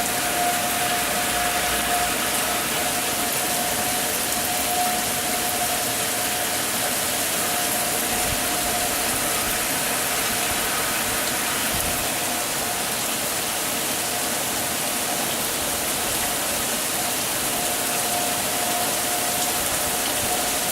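Heavy rain pouring steadily, a dense hiss. Behind it, a distant tornado warning siren holds one steady pitch, swelling and fading every few seconds; it is loudest at the start and again near the end.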